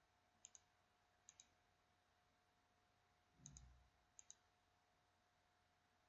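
Faint computer mouse clicks: four quick press-and-release double clicks, the last two close together. A soft low thump comes midway, over a faint steady hum.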